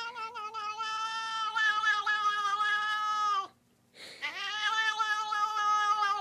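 A cat's weird meow: a long, drawn-out call held at a steady pitch that stops about three and a half seconds in, then after a short break a second long call of the same kind.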